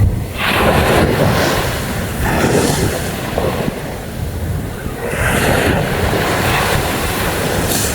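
Sea waves washing onto a beach in repeated swells, with wind buffeting the microphone as a steady low rumble.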